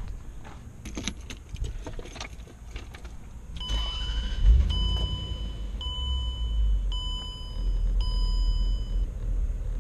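Keys jangling, then the Range Rover's engine starts and runs with a low rumble now that the new fuel pump is in. A dashboard warning chime sounds five times, about once a second.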